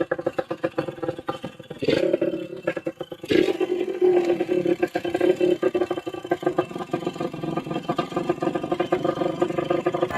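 Bored-up Yamaha RX-Z 135 two-stroke single-cylinder engine running with a rapid pulsing exhaust note. The throttle is blipped twice, about two and three-and-a-half seconds in, then the engine holds steady.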